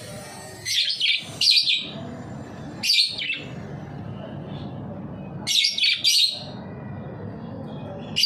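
Budgerigars chirping in short, bright bursts, in four bouts a second or two apart, over steady low background noise.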